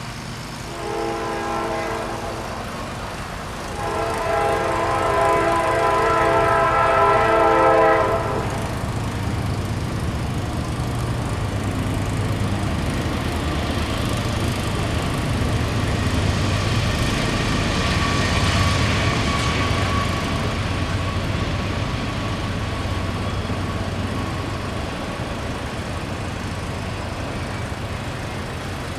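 Diesel locomotive air horn sounding a chord: a short blast, then a longer one held about four seconds. The train then rolls past with a low engine rumble and wheel-on-rail noise, which slowly fades.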